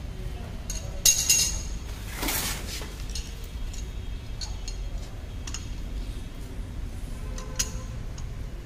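Clinks and taps of hand tools and pipe fittings being handled around a submersible pump while a plastic threaded adapter is fitted to its outlet. The loudest clinks come about a second in, followed by a brief scraping noise, with scattered light ticks after.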